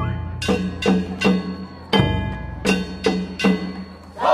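Nagasaki Kunchi festival accompaniment: a run of drum beats and metal gong strikes, each stroke ringing on, at about two strokes a second in an uneven rhythm.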